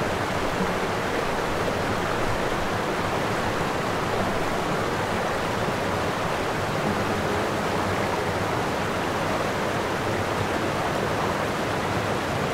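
A steady, unbroken rush of water.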